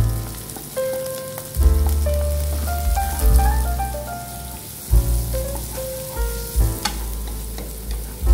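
Sliced onion and garlic sizzling in hot oil in a frying pan as a wooden spatula stirs them, under background music with a steady bass line and a slow melody.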